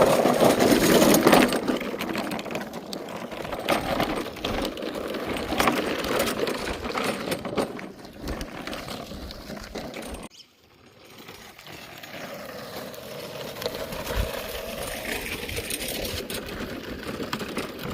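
An engineless riding lawnmower rolling along, its loose body panels and parts rattling in a steady clatter. The noise drops away briefly about ten seconds in, then builds again.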